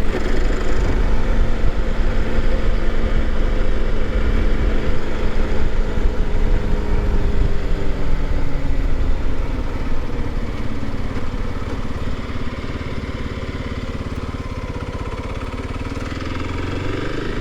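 Kawasaki KLX300's single-cylinder engine running while being ridden, with low wind rumble. The engine pitch falls around the middle as the bike slows, stays lower and quieter for a few seconds, then picks up again near the end.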